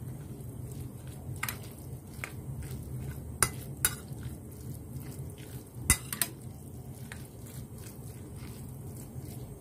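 A spoon stirring a mash of crumbled tofu, dried shrimp and spring onion into cornstarch in a glass bowl, with soft scraping and several sharp clinks of the spoon against the bowl, the loudest about three and a half and six seconds in. A steady low hum runs underneath.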